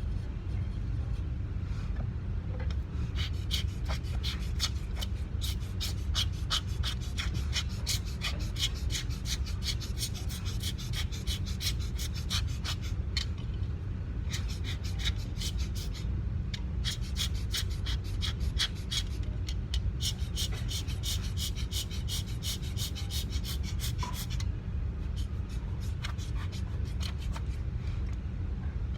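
Long runs of rapid small clicks and light scraping, with short pauses, over a steady low rumble.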